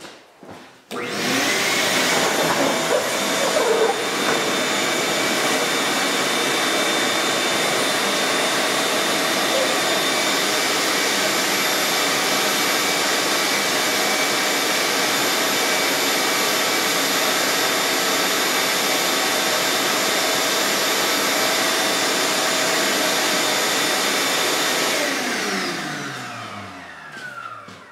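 Shop vacuum switches on about a second in and runs steadily as its hose is worked over a car's bare roof. Near the end it is switched off and its motor winds down with a falling whine.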